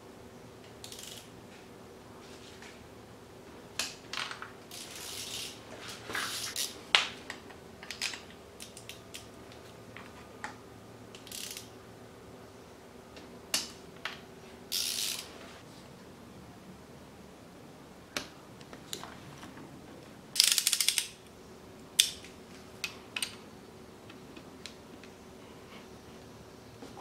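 Socket ratchet wrench clicking in short runs as bolts on a motorcycle engine are turned, with scattered single metallic clicks and clinks of tools. The loudest, fastest run of ratchet clicks comes about two-thirds of the way through.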